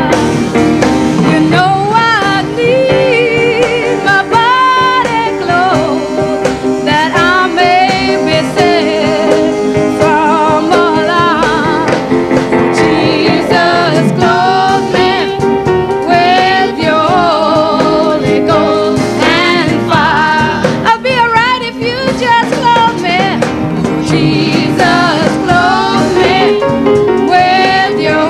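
Gospel vocal group singing with strong vibrato over steady instrumental backing.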